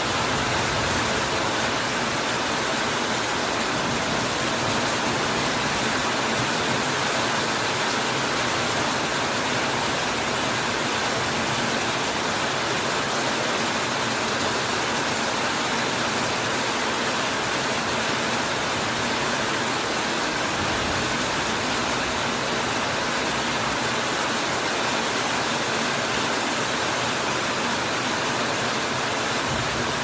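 Heavy rain falling steadily, a dense, even hiss with no breaks.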